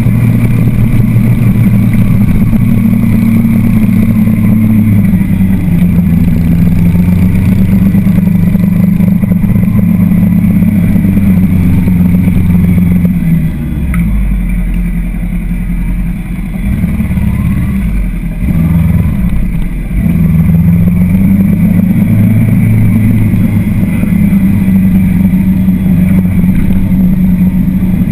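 Motorcycle engine running under way, heard from on board the bike, its note shifting in steps as the rider works the throttle and gears. About halfway through it drops lower and quieter for several seconds, then picks up again.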